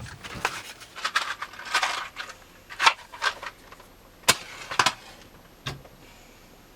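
Irregular sharp clicks, knocks and clinks, like small objects being handled and set down. They thin out and stop about five and a half seconds in.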